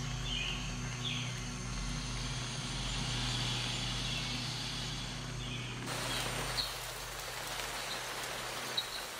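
Rainforest ambience with a few short bird chirps, then about six seconds in a steady patter of rain sets in, with a few drips near the end.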